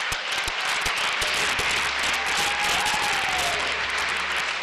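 Audience applauding: many people clapping together in a steady, loud ovation that breaks out suddenly.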